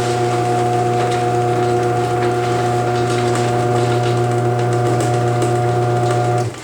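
Chamberlain HD200D chain-drive garage door opener's motor unit running close up: a steady hum with faint ticking that cuts off suddenly near the end as the opener stops.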